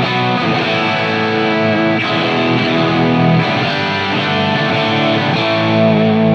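Electric guitar played through a Line 6 Helix running a PROXY capture of a 1966 Vox AC30: overdriven, but with the top still chimey and clean. Chords and single notes ring on and change every so often.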